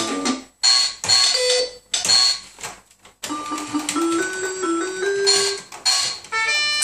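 Toy electronic keyboard being played by a toddler pressing keys: a few short separate sounds with gaps in the first three seconds, then a run of notes climbing step by step.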